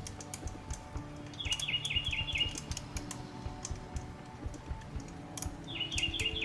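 Background music: sustained low notes under a quick run of high chirping notes that comes twice, about a second and a half in and near the end, with light clicks scattered throughout.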